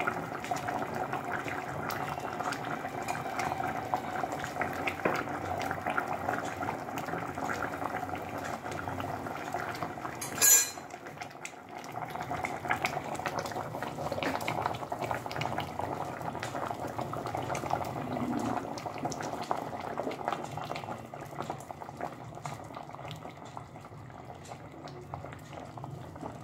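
Thick chicken curry boiling in an open pressure cooker pot, a continuous dense bubbling with many small pops. A single sharp click stands out about ten seconds in.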